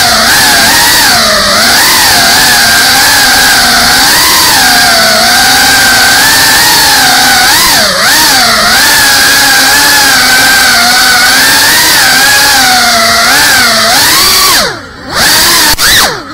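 FPV drone's electric motors and propellers buzzing loudly, the whine wavering up and down in pitch with the throttle. Near the end the buzz drops away briefly, twice.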